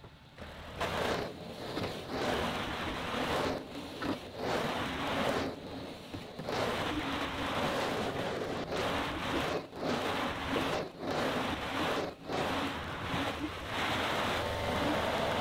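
Tracked skid loader's diesel engine running with a steady hum as the machine drives through loose sawdust, under a rushing noise that cuts out briefly every second or two.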